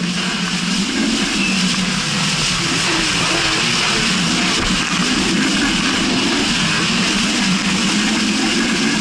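Jet ski engine running at speed, its pitch wavering slightly, under a steady rush of wind and spray.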